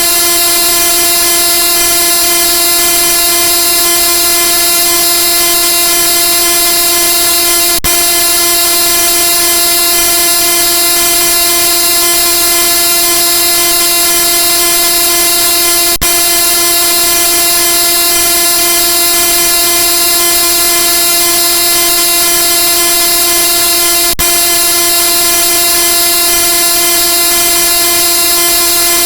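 A chorded horn sound effect: several tones sounded together in one loud, unchanging blast, like a train horn, looped with a tiny break about every eight seconds.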